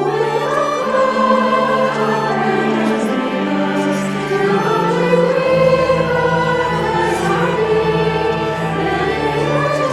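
A choir singing with sustained instrumental accompaniment, swelling in from silence at the start.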